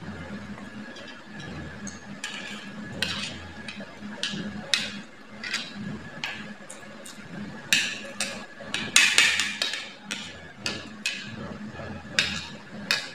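Metal spoons and forks clinking and scraping against plates as two children eat noodles, in irregular short knocks, busiest and loudest about nine seconds in.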